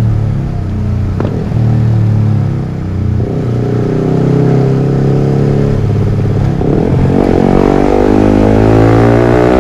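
Yamaha R15 V3's single-cylinder engine through a Villan MP1 aftermarket exhaust, revving: the revs fall and hold at a steady level, with one short pop about a second in, then climb steadily from about seven seconds in.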